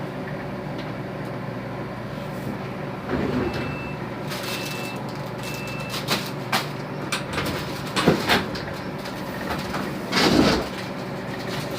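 Microwave oven running with a steady hum. About three and a half seconds in, three short high electronic beeps sound about a second apart, followed by scattered clicks and knocks and a loud rustle near the end.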